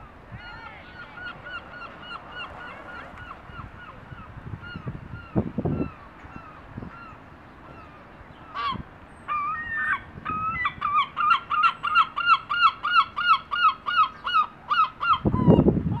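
Herring gull calling. In the first few seconds there is a faint run of short repeated yelping notes. From about nine seconds in comes a louder series of yelps, about three a second, the gull's long call. Low bursts of noise come about five seconds in and again near the end.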